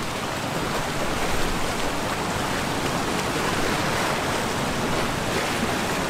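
Whitewater rapids rushing, a steady, unbroken noise of churning river water.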